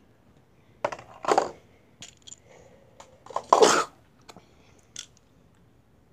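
Clicks, knocks and short rustles of small hard objects being handled, with two louder scraping rustles about a second and a half and three and a half seconds in, and a last click near the five-second mark.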